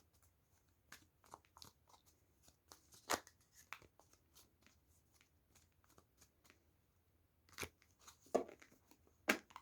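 Tarot cards being shuffled and handled: faint, scattered flicks and taps of card against card, with a few louder snaps.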